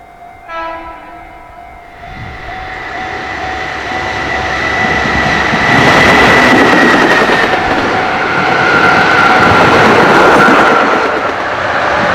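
A short train horn blast about half a second in. Then a high-speed freight train approaches and passes at speed, its rumble and wheel noise building and running loud from about six seconds on. A high whine drops in pitch as it goes by.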